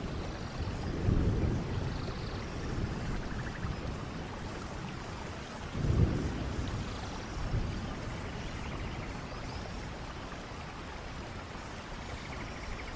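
Steady rushing-water nature ambience, rain-like or surf-like, with two low rumbling swells: one about a second in and a stronger one around six seconds in.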